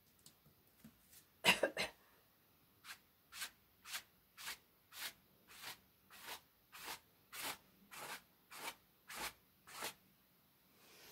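Paintbrush being worked back and forth on a canvas, about two short scratchy strokes a second. One louder scuff comes about a second and a half in, before the strokes settle into their rhythm.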